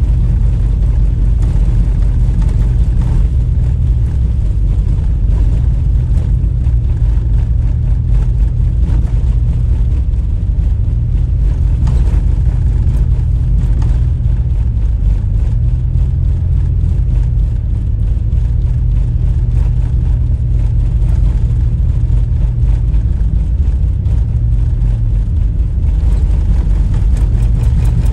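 Motor vehicle engine running with a steady low rumble, its pitch drifting slightly up and down now and then.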